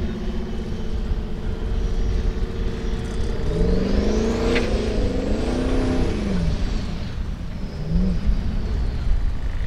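Formula Offroad buggy's engine running hard as it climbs a steep loose gravel slope: a steady note at first, then from a few seconds in the revs rise and fall repeatedly, with a high whine climbing and falling alongside.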